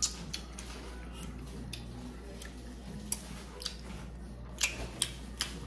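Light clicks and taps of dishes and utensils on a dining table, about six sharp ones spread irregularly over a steady low hum.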